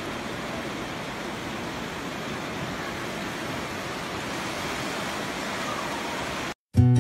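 Rushing mountain river: a steady, even rush of whitewater over rocks. Near the end it cuts off suddenly, and guitar music starts.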